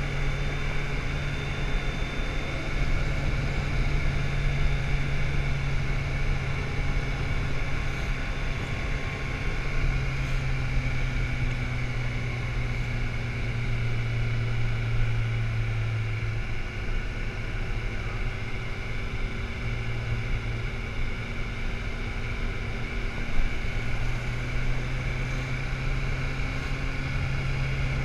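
Motorcycle engine running steadily while riding, its low drone under continuous wind and road rush on the microphone; the engine note rises and falls slightly through the curves.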